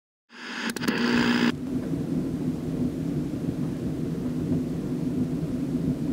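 Thunderstorm: a sudden loud clap of thunder with a few sharp cracks near the start, settling into a steady low rumble.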